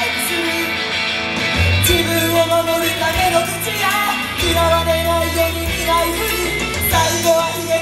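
Live idol-group pop song played loud through a club PA, with singing over a full band sound; a heavy bass line comes in about one and a half seconds in.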